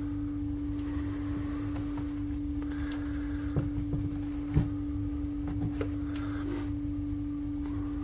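Steady low hum at one pitch, with a few soft knocks and rustles around the middle as a rubber washing-machine door seal is turned over and laid down on a workbench.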